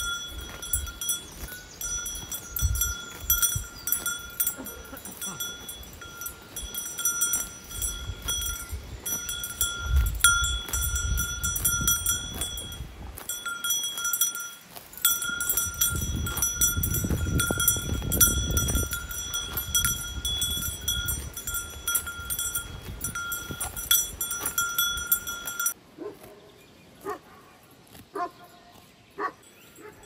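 Cowbells clanking steadily on grazing cows, their ringing held at the same pitches with many small knocks. The bells stop abruptly a few seconds before the end.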